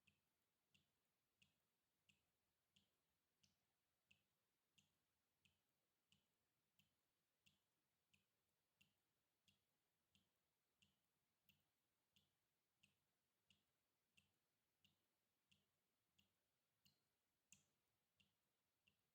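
Water dripping in a slow, even rhythm, about three drops every two seconds, very faint, with one drop a little louder near the end.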